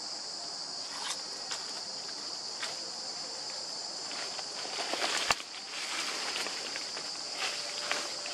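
A steady, high insect chorus drones throughout, with scattered rustles and crackles of dry leaf litter. A sharp click about five seconds in is the loudest sound.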